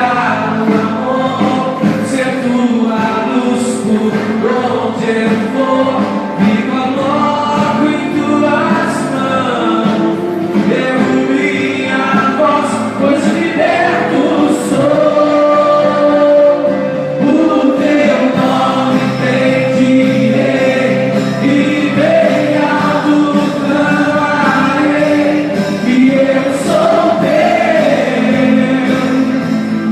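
Worship band and a group of voices singing a gospel song together, with a steady beat.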